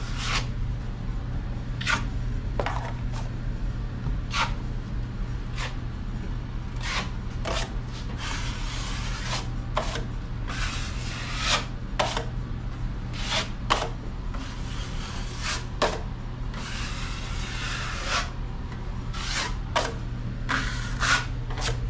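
Metal drywall knife scraping joint compound across a paper-faced hot patch on a drywall wall, pressing it flat and smoothing it. It goes in a series of strokes, some quick and some drawn out over a second or so.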